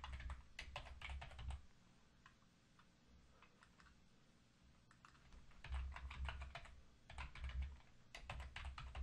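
Typing on a computer keyboard in quick runs of keystrokes: one run in the first second and a half, a pause with only a few stray clicks, then three more short runs in the last three and a half seconds.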